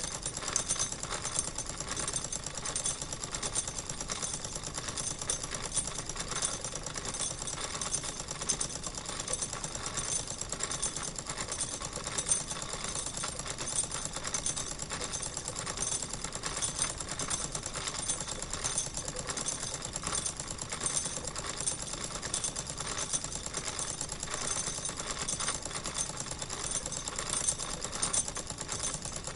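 Wilesco live-steam model engine running steadily, purring with a rapid, even mechanical clatter.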